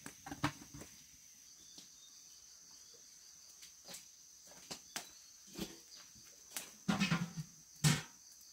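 Steady high-pitched insect chirring with scattered knocks and clatters, the loudest cluster of them near the end.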